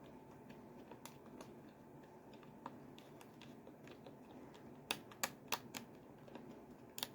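Buttons on a RadioShack PRO-136 weather radio being pressed one after another, clicking like a keyboard: faint scattered clicks, a quick run of four louder clicks about five seconds in, and another near the end.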